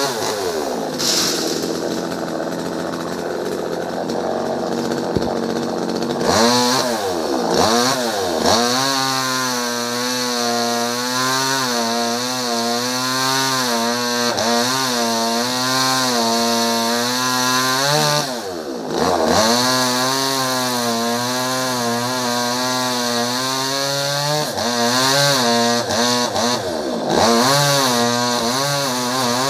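Two-stroke top-handle chainsaw running at high revs while cutting through tree branches, its pitch wavering under load. Several times the engine drops in pitch and revs back up.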